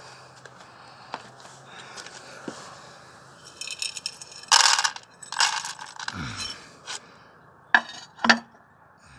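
A red plastic cat-food bowl scraped about on a concrete floor and dry kibble shaken out of a jar into it: a run of loud scrapes and rattles through the middle, then two sharp clinks near the end.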